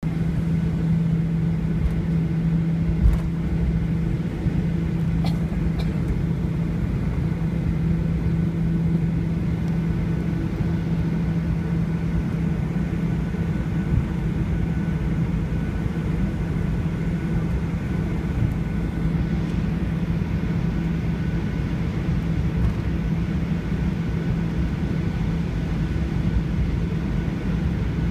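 Airliner cabin noise: a steady low rumble of engines and air systems with a constant hum, with a few faint clicks in the first few seconds.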